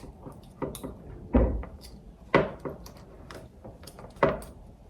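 Thin aluminum pop-can sheet being cut and handled for a shim: about six sharp snips and clacks, the loudest a knock with a low thump about a second and a half in.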